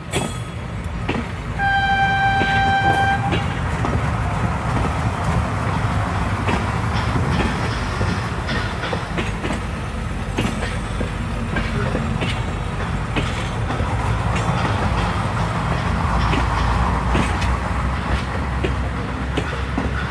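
Train sound effect played on a theatre stage: one horn blast about two seconds in, lasting about a second and a half, over the steady rumble and clickety-clack of a moving train.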